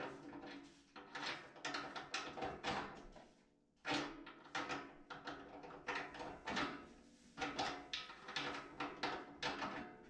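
A steel L-shaped hex key being turned in a radiator's valve-tail fitting: a run of short metal scrapes and clicks, two or three a second, with a brief pause near the middle.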